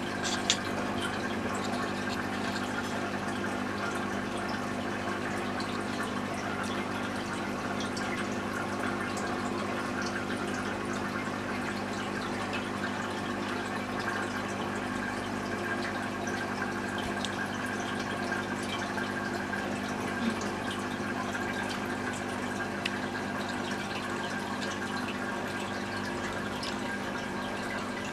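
Aquarium filter running: steady water flow, with the low hum of the filter pump beneath it and scattered faint ticks, one sharper tick about half a second in.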